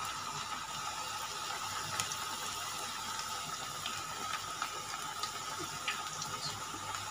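Batter-coated chicken lollipops deep-frying in hot oil in a kadai over a low flame: a steady sizzle with small scattered crackles and pops.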